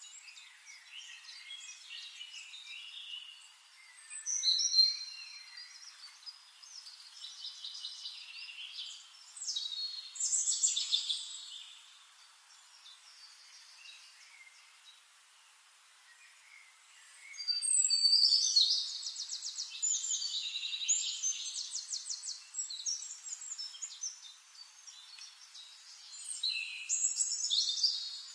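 Birds singing outdoors in bouts of rapid, high chirps and trills, with quieter pauses between; the busiest spell comes about two thirds of the way through.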